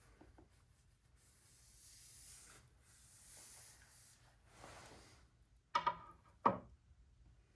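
Soft rubbing and handling noises from oily motorcycle fork internals being worked loose and handled, with two short sharp knocks near the end.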